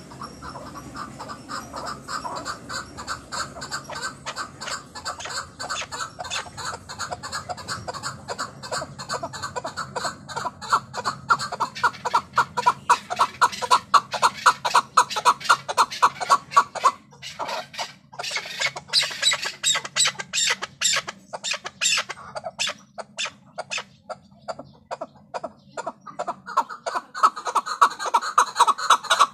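Chukar partridge calling: a long run of rapid, repeated chuck notes that grows louder and faster, breaks off briefly about seventeen seconds in, turns to sharper, higher notes, then resumes near the end.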